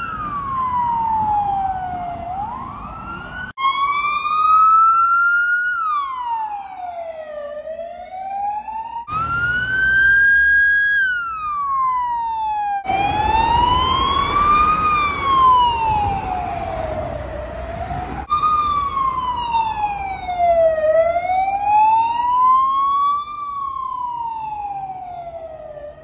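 Romanian ambulance siren wailing, its pitch sliding slowly up and down, each rise or fall taking two to three seconds. Several recordings are joined, cutting abruptly from one to the next about every four to six seconds, some with a low rumble under the siren.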